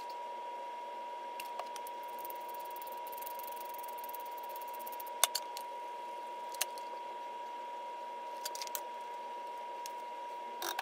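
A steady high-pitched tone over faint hiss, with a few light clicks of a metal spoon against a seasoning jar as powder is spooned out.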